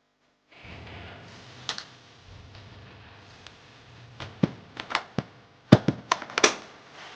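Irregular clicks and knocks of hard plastic parts being handled and fitted, bunched together in the second half, over a faint steady background hum.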